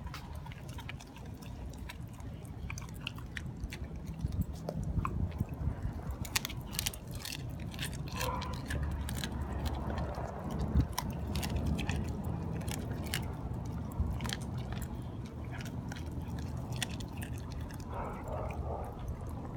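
Dogs chewing raw fish: a long run of irregular wet clicks and bites, thickest in the middle stretch.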